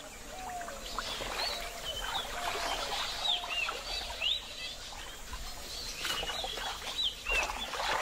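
Small birds chirping and whistling in many short rising and falling notes, over a faint background of lapping water.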